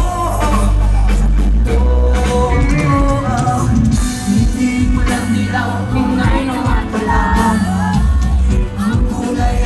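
Filipino rock band playing live with singing over heavy bass, heard from among the audience.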